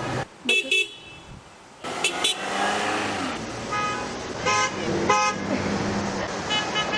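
Car horns honking in several short toots over the sound of passing traffic, with a longer, steadier honk starting near the end.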